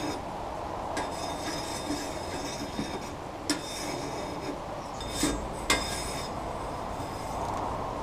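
Sharp chisel scraping hardened old build-up off a steel sawmill band blade: a steady scratchy scrape of steel on steel, broken by a few sharp clicks as the chisel catches on the blade.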